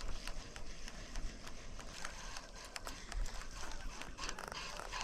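Irregular light clicks and ticks over a steady outdoor hiss.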